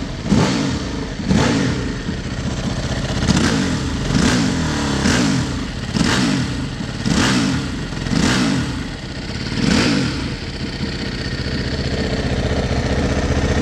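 Aprilia SXV 550 V-twin engine revved through its stock exhaust in a string of short throttle blips about a second apart, then settling to a steady idle about ten seconds in.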